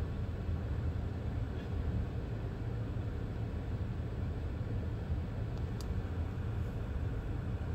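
Steady low rumble of a freight train's hopper and tank cars rolling slowly past, heard from inside a car.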